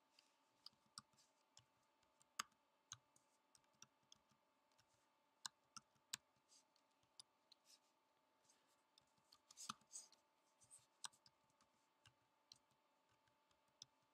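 Faint, irregular keystrokes on a computer keyboard, typing out a string of numbers, over a faint steady tone.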